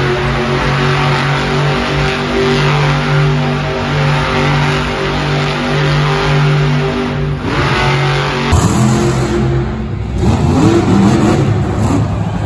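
Monster truck engine revving hard in repeated surges about once a second as the truck spins donuts on the arena dirt. After an abrupt change partway through, the engine revs up again in rising sweeps as a truck rears onto two wheels.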